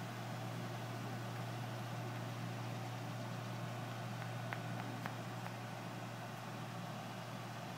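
A steady low mechanical hum, even throughout, with a few faint clicks about halfway through.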